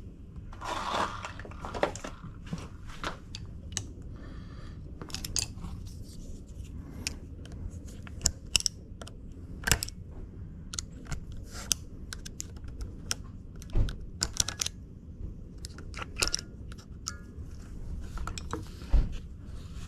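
Irregular plastic clicks, snaps and taps of hands working the retaining clips on a yoke steering wheel's plastic trim to release it.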